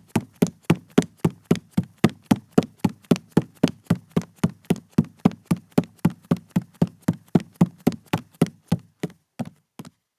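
A woman's barefoot footsteps on a wooden floor, a quick even pace of about four steps a second. Near the end the steps space out, grow fainter and stop.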